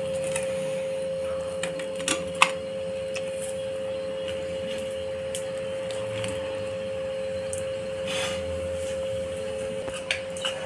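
Toasted sandwich halves being set down and shifted about on a plate: a few light clicks and taps, a couple of them close together about two seconds in, and a soft scrape around eight seconds. A steady hum runs underneath.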